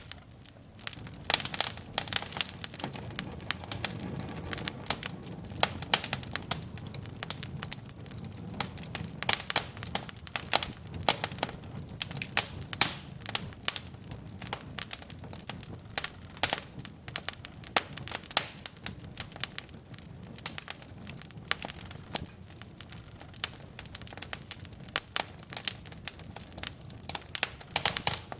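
Wood fire burning in a fireplace: logs crackling and popping irregularly, with a soft low rush of flame underneath.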